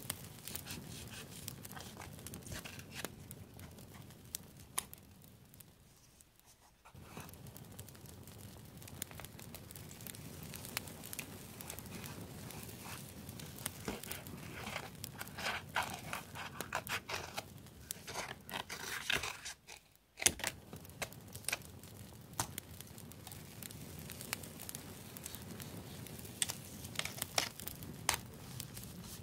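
Close-up paper-crafting sounds: paper and sticker sheets crinkling and rustling, and small scissors snipping through paper, with many small clicks and crackles. The sound breaks off briefly twice, about a fifth and about two-thirds of the way through.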